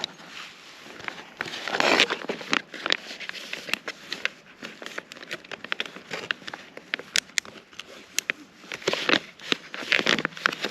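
Crinkling and rustling of a plastic freeze-dried meal pouch being handled, with stronger bursts about two seconds in and near the end, amid scattered sharp crackles.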